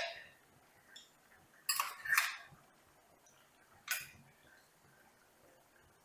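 Kitchen utensils clinking and scraping against cookware in a few short, separate strokes: a faint one about a second in, two close together around two seconds, and one near four seconds.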